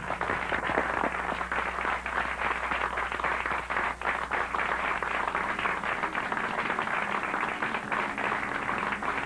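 Studio audience applauding steadily, with music faint underneath.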